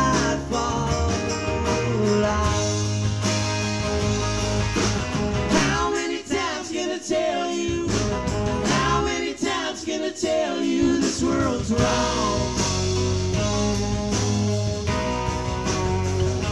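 A live rock band playing an instrumental passage of the song: electric and acoustic guitars over bass and drums, with wavy, bending guitar lines on top. Twice, about six seconds in and again around ten seconds, the low end drops out briefly and then comes back in.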